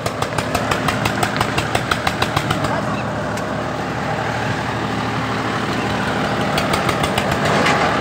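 Diesel engine of a four-wheel-drive John Deere tractor running steadily as it drives along a gravel track, with a rapid ticking clatter over the first few seconds.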